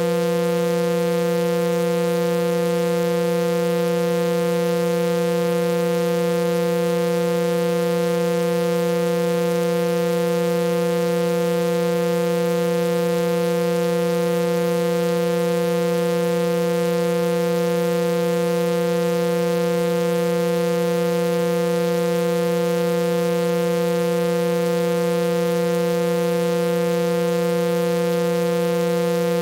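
Steady electronic sound-healing tone: one constant buzzy pitch with many overtones, held without change. It is one of a set of personalized frequencies generated by software from a voice sample.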